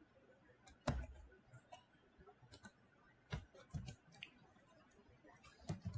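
A handful of separate computer keyboard keystrokes clicking at irregular intervals, the loudest about a second in.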